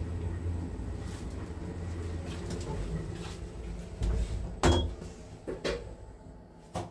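Machine-room-less AS passenger lift car running with a steady low hum, then stopping at the floor with a thump about four seconds in, a short beep, and a few clicks and knocks from the car and door gear.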